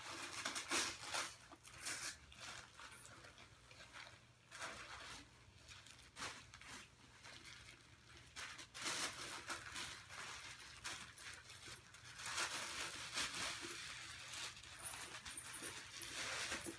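Packaging rustling and crinkling in irregular bursts as a quilted leather handbag is pulled out of its white wrapping and the wrapping is pulled away, loudest about a second in, around nine seconds in and again from about twelve seconds.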